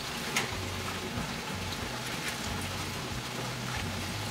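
Tap water pouring into a steel basin of soaked soybeans while hands stir and rub the beans, with steady splashing and sloshing. The soaked beans are being washed until the water runs clear, before being ground into soy milk.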